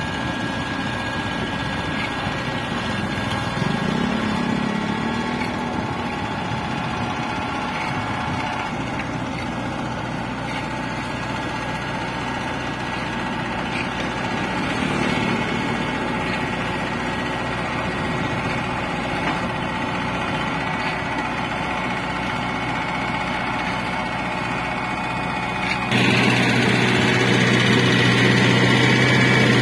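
Hanta F1740C mini asphalt finisher's engine running steadily while working, with the dump truck feeding its hopper alongside. The sound grows suddenly louder near the end.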